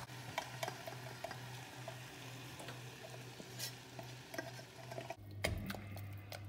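Béchamel sauce being scraped from a pot into a steel saucepan of sautéed onions and shredded salt cod, with soft sizzling and light scrapes and clicks of a spatula and wooden spoon against the pans, over a low steady hum. Toward the end the thick mixture is stirred with the wooden spoon.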